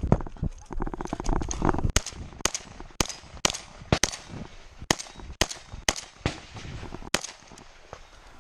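A firearm firing a string of about a dozen shots, mostly about two a second, with a gap of a second or two after the first shot and the last shot about seven seconds in. This is the shooter working through a timed stage of a practical shooting match.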